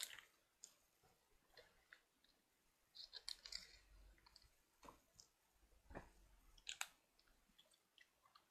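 Faint mouth sounds and the crinkle of a small plastic lemon juice packet being squeezed and sucked. Scattered soft clicks and crackles, bunched about three seconds in and again near seven seconds.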